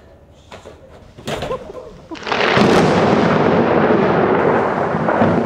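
A few faint knocks, then about two seconds in a loud, long rumbling boom like thunder that slowly fades.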